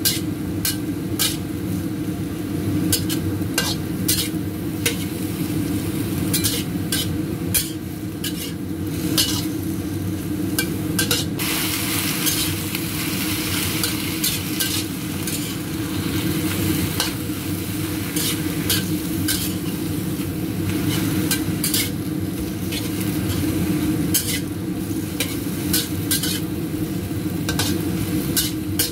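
Lettuce sizzling as it is stir-fried in a stainless steel wok, with a metal spatula scraping and clicking against the wok again and again. The sizzle grows stronger for a few seconds about halfway through.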